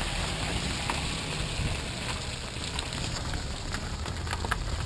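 Water dripping and draining off a racing powerboat's hull as it comes out of the lake on its trailer: a steady patter with faint scattered ticks.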